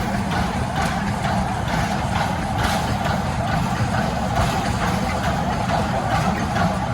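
Sugar cane train's bins rolling past on the narrow-gauge cane tramway: a steady rumble and grinding of steel wheels on rail, with repeated clacks as the wheels pass over the rail joints.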